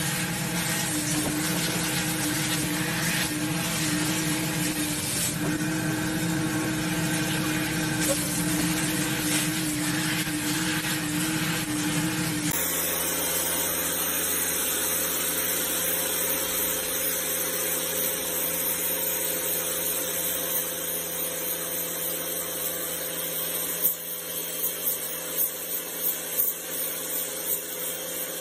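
Wet-extraction vacuum motor running with a steady hum while its clear upholstery nozzle is drawn along a fabric car seat. About halfway it cuts to a pressure washer's jet spraying on paving slabs, a steady hiss with a few uneven surges near the end.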